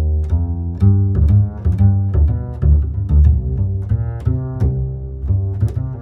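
Background music: a plucked bass line with bowed string notes over it, in a steady rhythm.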